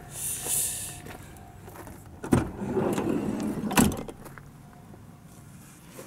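A brief hiss at the start, then a sharp knock about two seconds in, followed by about a second and a half of rattling and scraping that ends in a second knock.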